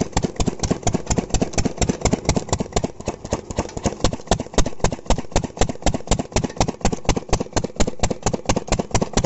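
Field Marshall Lister-type slow-speed stationary diesel engine running steadily with even chugging exhaust beats, about six a second, while driving a water pump.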